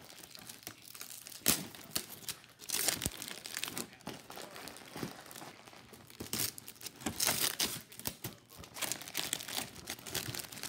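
Plastic cellophane wrapping on an Easter basket crinkling as it is handled, in irregular bursts of crackling.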